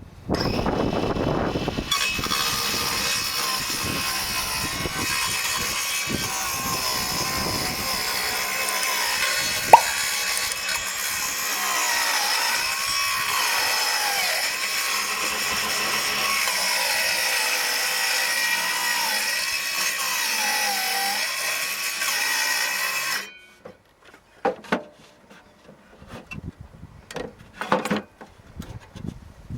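Ferrex 18V cordless circular saw rip-cutting a wooden board lengthways, running for about twenty seconds with its pitch wavering under load and a sharp click about ten seconds in, then cutting off suddenly. A few scattered knocks follow.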